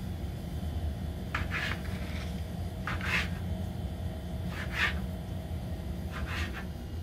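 Kitchen knife slicing raw tuna on a wooden cutting board: about six short scraping strokes, spaced irregularly, over a steady low hum.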